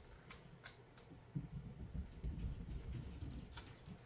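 Faint, scattered clicks and rustling as hands work at a leather shoulder holster holding a pistol.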